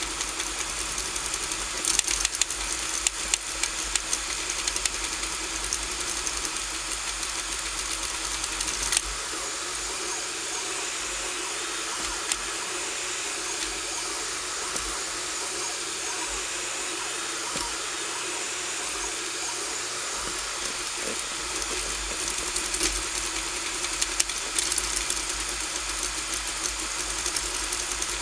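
RigidBot 3D printer printing: the stepper motors buzz and whir as the print head moves, over a steady fan hiss. Bursts of quick sharp ticks come in the first few seconds and again near the end, with smoother running in between.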